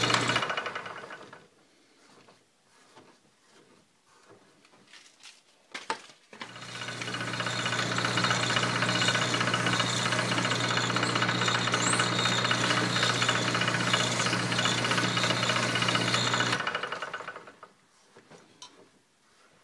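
Small wood lathe's motor running with a steady hum, switched off about half a second in and winding down. A few light clicks and knocks follow in the quiet, then the lathe starts again about six seconds in at a slow speed for sanding. It runs with sandpaper held to the turning wooden pipe, then is switched off and spins down near the end.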